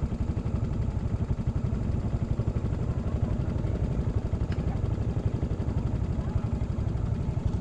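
Small motor scooter engine running at low speed while being ridden slowly over a rutted mud track, a steady low pulsing.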